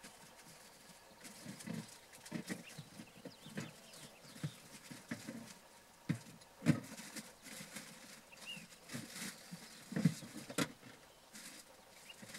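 Footsteps on dry sand and twigs: irregular soft crunching steps, a few heavier ones about a third of the way in and again near the end.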